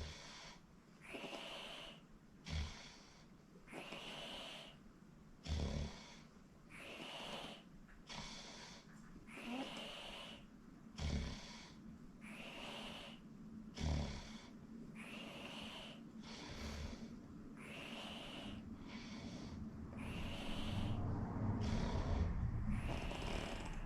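A sleeping person snoring loudly in a steady rhythm, one breath roughly every three seconds. Each breath has a short, low snort and a longer breathy, whistling sound. A low rumble swells in under the snoring near the end.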